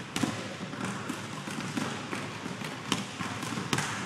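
Basketballs bouncing on a hardwood gym floor, many short thumps at irregular times from several balls, over steady background noise.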